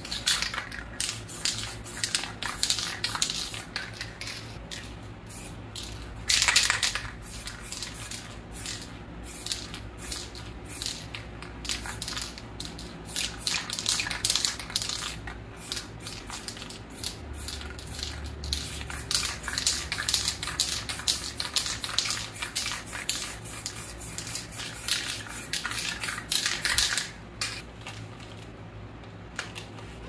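Aerosol spray paint can hissing in many short bursts, with a longer, louder blast about six seconds in, stopping a few seconds before the end. A steady low hum runs underneath.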